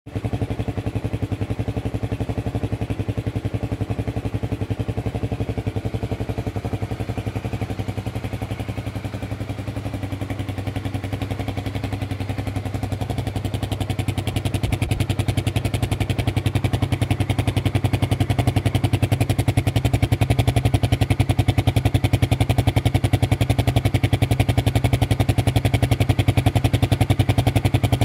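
Loncin Guerrero YF300 motorcycle's single-cylinder 300cc four-stroke engine idling steadily in neutral, its exhaust note coming through a carbon-fibre muffler. It gets somewhat louder from about halfway through.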